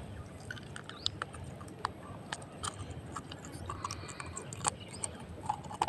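Faint, irregular small clicks and ticks from hands working a hook and line out of a caught snakehead fish's mouth.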